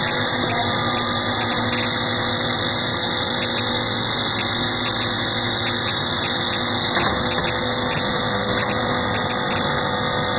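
Nail coiling machine and surrounding workshop machinery running with a steady mechanical drone and a constant hum.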